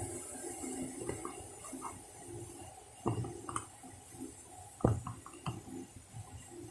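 Cup and kitchen things being handled: faint scattered clinks, with two sharper knocks about three seconds and five seconds in.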